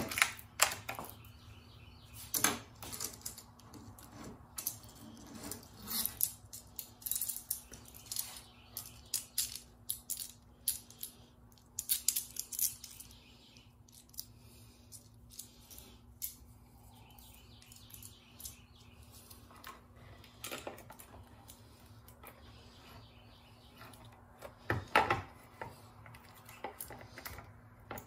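Chainsaw saw chain clinking and rattling in the hands as it is looped onto a Homelite bar and worked around the drive sprocket. Irregular runs of small metallic clicks come thick over the first half and grow sparse later.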